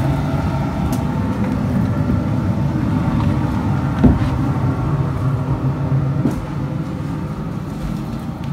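Steady low engine drone, like a motor idling, with a single sharp knock about four seconds in and a lighter click a couple of seconds later.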